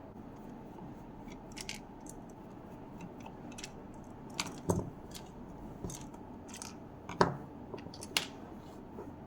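Scattered clicks and knocks of a portable blender's hard plastic parts being handled while it is taken apart, with three louder knocks in the second half.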